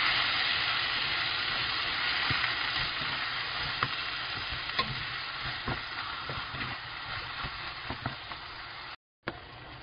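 Webfoot octopus and cabbage stir-frying in a nonstick pan: a steady sizzle that slowly dies down, with scattered clicks of a wooden spatula against the pan as the food is turned. The sound breaks off for a moment near the end.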